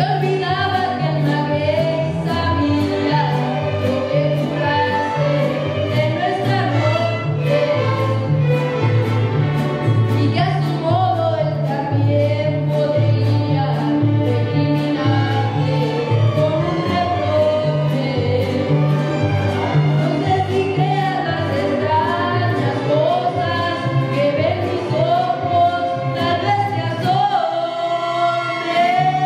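A mariachi ensemble playing: a boy sings lead over violins, trumpet and strummed guitars, with a guitarrón bass alternating between two notes under a steady strummed rhythm. Near the end the bass drops out and a long note is held.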